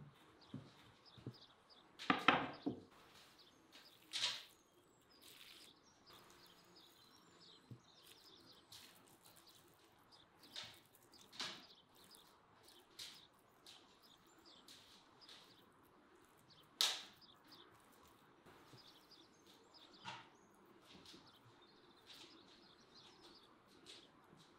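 Quiet kitchen handling sounds as dough is worked on a wooden board: a short clatter about two seconds in, then scattered soft taps and clicks as hands spread minced meat over the dough.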